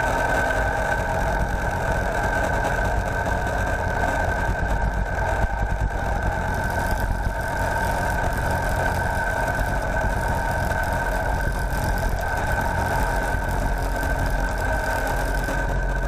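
Kubota compact tractor's diesel engine running steadily, with a constant high whine over the engine hum.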